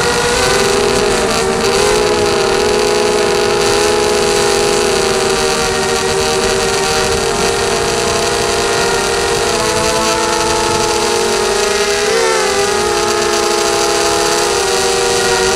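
ZMR250 mini quadcopter's Sunnysky 2204 brushless motors and propellers whining steadily in flight, heard close from the onboard camera. Several close pitches shift with the throttle, with a quick dip and rise about twelve seconds in.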